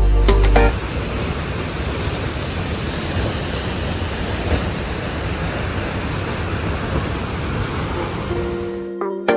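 A steady rushing noise, even and without rhythm, after music cuts off under a second in; plucked-string music comes back in just before the end.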